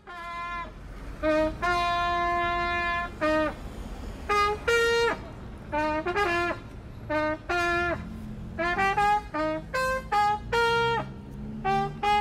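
Trumpet played solo: a melody of separate notes with short pauses between them. About a second and a half in, one note is held for about a second and a half.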